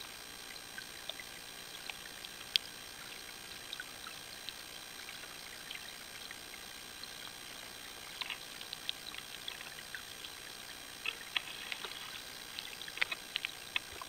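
Underwater river ambience: a steady hiss of flowing water with scattered sharp clicks and ticks. One sharp click comes a few seconds in, and the clicks grow more frequent from about eight seconds in.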